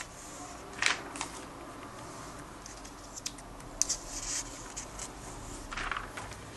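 Paper rustling and light clicks as a comic book's pages are handled and turned, in short bursts about a second in, around four seconds and near six seconds.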